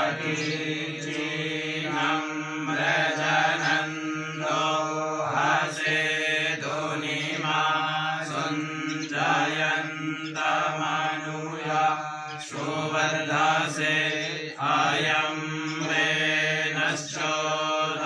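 Men chanting Sanskrit mantras for a Navagraha (nine-planet) fire ritual, reciting on a steady pitch with short breaks between phrases.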